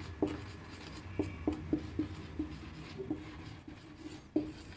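Marker pen writing on a whiteboard: a string of short, irregular taps and scratches as the letters are stroked out, with a brief faint squeak about a second in.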